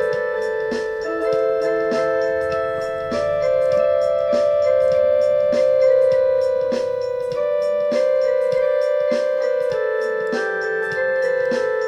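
Instrumental ringtone melody played on an electric keyboard, sustained chiming notes struck in a steady, even rhythm.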